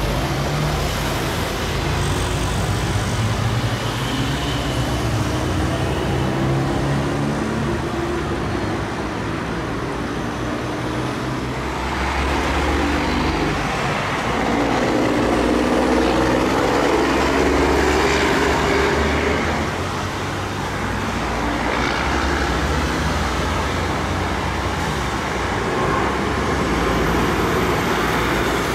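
Boeing 777 freighter's twin GE90 turbofans at takeoff thrust through the takeoff roll, liftoff and climb-out: a loud, steady jet rumble with a wavering engine hum, loudest around liftoff midway through.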